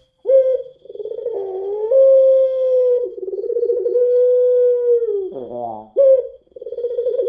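Puter pelung, a domestic Barbary dove variety, giving its long drawn-out coo: a steady hooting note held for seconds. About five seconds in the call dips, breaks off briefly and starts again.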